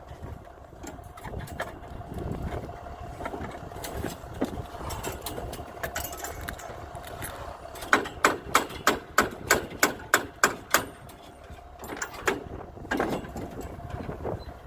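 Hammer blows on construction formwork: a quick run of about ten sharp strikes a little past halfway, then a few more near the end, over a steady engine hum.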